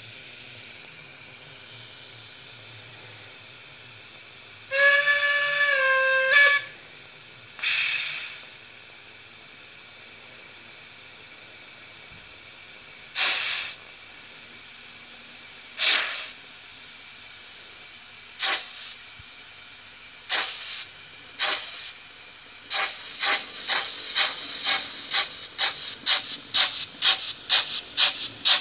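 Sound decoder of a Trix model of the 050 TA 23 steam tank locomotive, playing through its small loudspeaker. Over a steady hiss it gives one long steam whistle about five seconds in and a short blow of steam. Then come slow single exhaust chuffs that close up to about two or three a second near the end as the locomotive pulls away.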